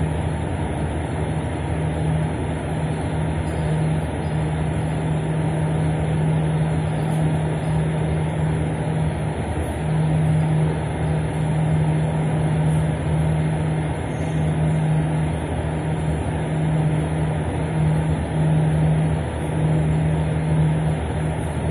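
A steady low mechanical hum with a droning tone that wavers and drops out briefly now and then.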